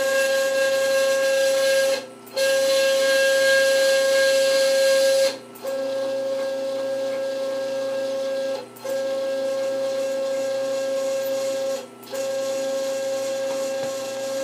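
Stepper motors of a homemade CoreXY 3D printer whining in a steady tone during long moves. The whine breaks off for a moment about every three seconds as one move ends and the next begins, and is a little quieter after the second break.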